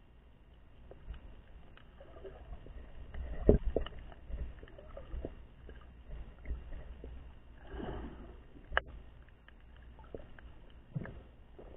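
Muffled underwater sound from a camera held below the sea surface: water swishing and scattered knocks and thumps, the loudest about three and a half seconds in and a sharp knock near the nine-second mark.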